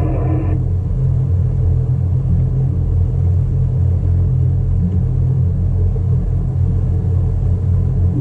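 Steady low rumble of a towboat's engine. A higher pitched tone with many overtones cuts off about half a second in.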